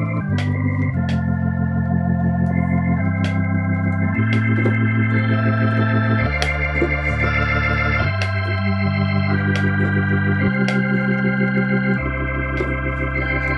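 Yamaha Montage M organ preset "Preacher Plus" played through the ESP plugin: gospel-style held organ chords over a deep bass line, with the chords changing every second or two.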